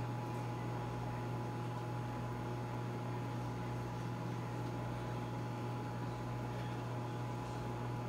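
Over-the-range microwave oven running on a one-minute cook: a steady low hum with fan noise and a faint steady higher tone.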